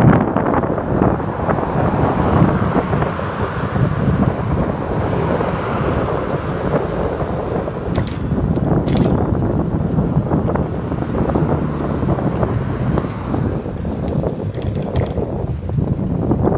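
Wind buffeting the microphone of a camera on a moving bicycle, over steady tyre and road noise from rolling on asphalt, with two faint ticks about halfway through.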